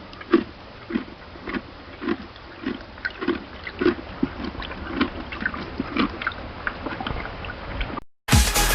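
A horse chewing hay: repeated crunching bites, roughly two a second, over a low rumble.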